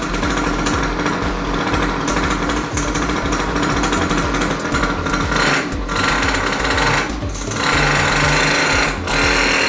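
Air-cooled 50 cc single-cylinder two-stroke engine of a mini ATV running, swelling louder in several short revs as the throttle is worked, around five seconds in and repeatedly near the end.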